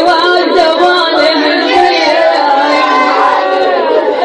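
A mullaya, a female Shia lament reciter, chanting a mourning lament (nai) in long, bending, ornamented notes.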